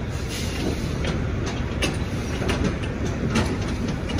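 A semi truck running at low speed close by, its low diesel rumble steady, with scattered clicks and knocks over it.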